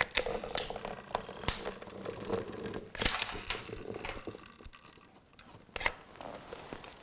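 Manual caulking gun squeezing out a bead of construction adhesive: scattered clicks and rattles from the trigger and plunger rod, with a sharper click about three seconds in and another near six seconds.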